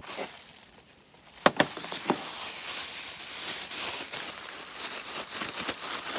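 Clear plastic bag crinkling as it is shaken and squeezed in the hands to mix chijimi flour with water inside it. The rustling starts about a second in, with a few sharp crackles in its first second.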